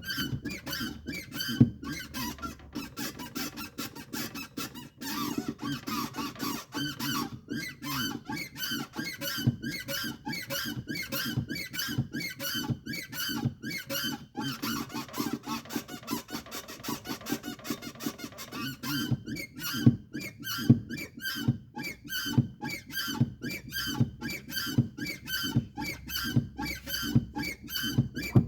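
Clutch pedal mechanism of a Volkswagen Polo 1.2 TSI squeaking over and over as the pedal is pressed and released, a rapid run of high, creaky squeaks with a few brief pauses. The squeak persists even after all external moving parts of the pedal and engine-bay linkage were lubricated; its cause is still undetermined.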